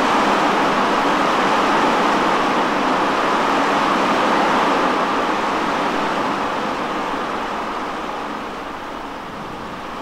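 Heavy rain falling, a steady rushing hiss that fades gradually over the last few seconds.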